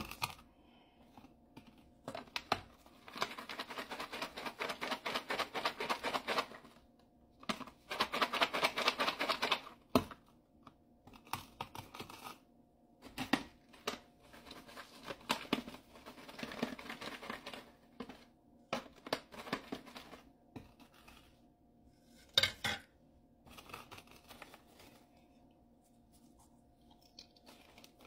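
Popped popcorn rustling and rattling as it is shaken and poured in paper popcorn boxes: three spells of rapid rattle of a few seconds each, with scattered taps of the boxes in between.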